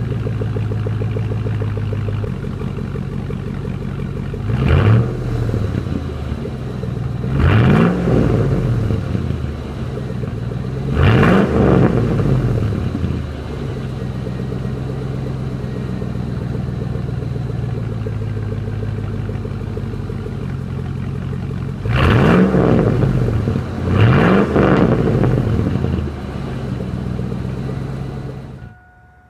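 A 2000 Chevrolet Silverado 1500's engine through a muffler-delete exhaust with the catalytic converters kept, idling steadily on a cold start. It is blipped about five times, each rev rising quickly and falling back to idle, and the sound cuts off near the end.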